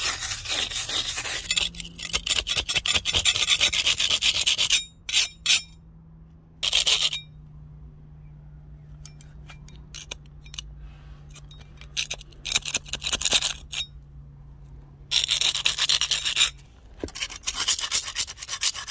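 A wire brush and a metal scraper rasping acid-softened mortar off brick: a run of rapid scratchy strokes at first, then short bursts of scraping with pauses between them.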